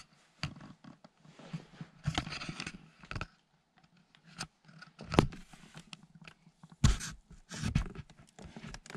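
Cardboard box being scraped, scratched and knocked in irregular bursts, with sharper knocks about five seconds in and again about seven seconds in.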